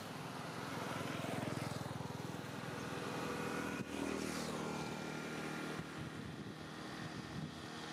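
A motor vehicle engine running steadily, louder about one to two seconds in, with a change in its pitch about four seconds in.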